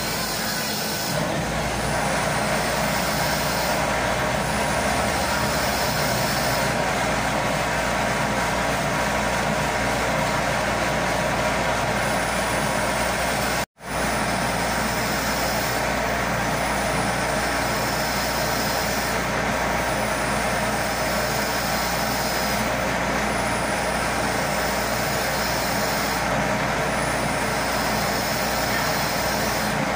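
Metal lathe running steadily while its tool cuts a metal conveyor shaft, a constant machine drone with cutting noise. It breaks off for an instant about halfway through.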